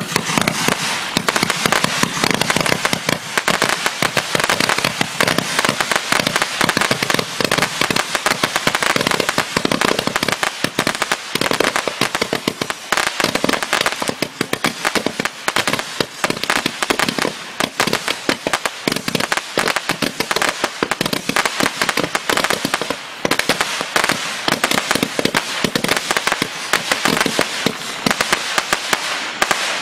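A 228-shot jumbo candle (Magnus 'The Hammer') firing shot after shot, a fast, unbroken run of sharp pops, several a second.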